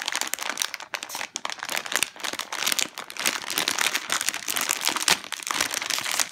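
Foil blind-bag packaging crinkling as hands squeeze and work it open: a dense, irregular run of crackles throughout.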